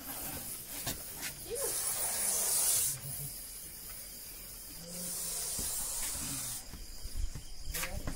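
Russell's viper hissing in long exhalations every few seconds: the strongest about one and a half seconds in, another about five seconds in, and a short one near the end. It is the defensive hiss of an agitated snake.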